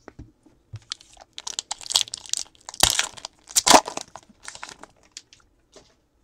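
Foil trading-card pack wrapper crinkling and tearing open in gloved hands: a run of crackles and short rips, the two loudest near the middle.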